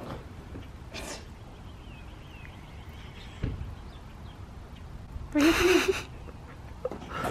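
A border collie makes one short, loud vocal sound about five seconds in, over a faint outdoor background. A softer breathy puff comes about a second in.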